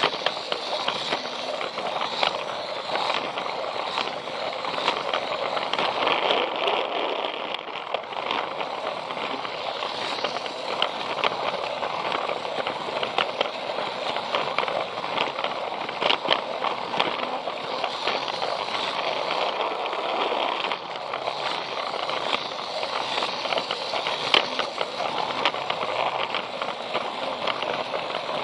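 Battery-powered Plarail toy train running along plastic track, heard from on board: a steady rattling of its small motor, gears and plastic wheels, with frequent small clicks and knocks.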